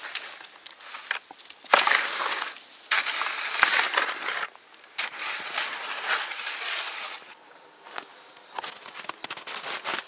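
Snow shovel digging into packed snow and scooping it, in three long scrapes in the first seven seconds, then lighter footsteps in snow near the end.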